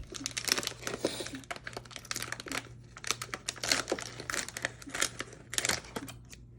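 Packet of powdered drink mix crinkling and rustling in irregular crackles as it is cut open and handled.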